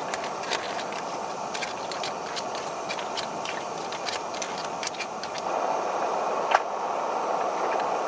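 Plastic packaging of dried spaghetti being cut open and handled, a run of small crinkling clicks, then one sharp snap near the end, over a steady rushing hiss.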